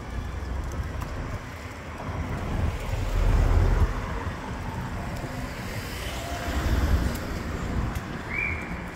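Gusty storm wind buffeting the microphone in heavy low rumbles, strongest about three seconds in and again around seven seconds, over the steady noise of street traffic passing. A short high chirp sounds near the end.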